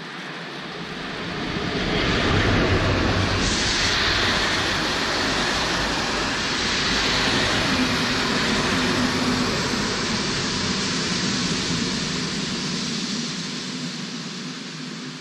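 ČD class 242 (Škoda 73E) electric locomotive and its passenger coaches passing close by on the rails. The sound swells about two seconds in as the locomotive goes past, holds as a steady loud rolling noise of the coaches' wheels on the track, and fades away near the end.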